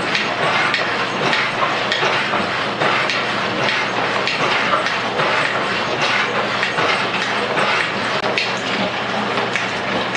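Rhodes metal shaper running and cutting a metal block, its ram going back and forth with repeated clacks over a steady motor hum.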